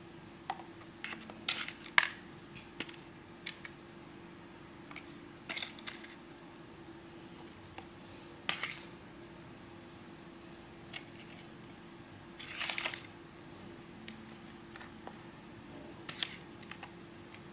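Scattered clicks, taps and scrapes as a plastic potting scoop and fingers work loose potting mix into a small plastic pot on a plastic tray, with a short rustling patch about two-thirds of the way through. A faint steady hum runs underneath.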